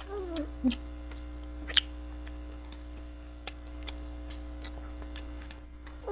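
Steady electrical hum with scattered small clicks, one sharper click a little under two seconds in. A brief falling whine-like vocal sound comes in the first second.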